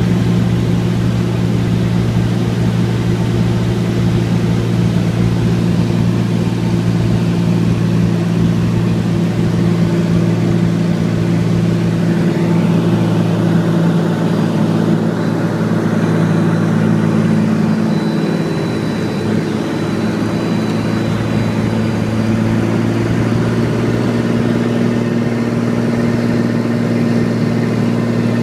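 Single piston engine and propeller of a floatplane, heard from inside the cabin as a loud, steady drone through the landing. The engine note changes about halfway through as the plane comes down onto the water, then holds steady as it runs along the river.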